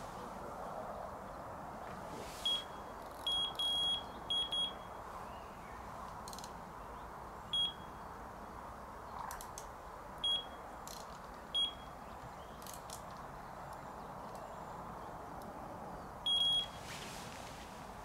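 Electronic carp bite alarm beeping: a series of short, high single-pitch beeps at irregular intervals, a few close together early on and a longer one near the end, as the rods and line are handled on the rod pod.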